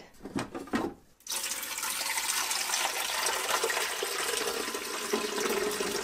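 Water poured in a steady stream into the Keurig K-Elite coffee maker's clear plastic water reservoir, starting about a second in.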